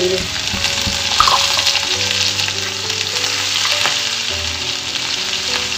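Cumin seeds, ginger-garlic paste and chopped green chillies sizzling steadily in hot oil in a non-stick kadai.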